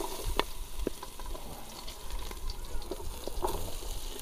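Sliced onions sizzling as they are pushed into hot oil in an aluminium pot, a steady hiss with a few light ticks from pieces dropping in.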